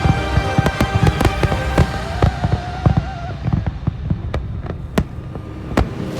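Fireworks going off in a rapid run of bangs and crackles over a low rumble. Music plays underneath and fades out about halfway through.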